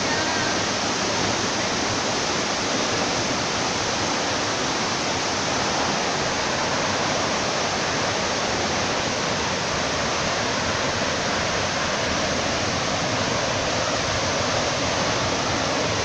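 Steady rushing of a 70-metre waterfall close by, an even, unbroken wash of falling water.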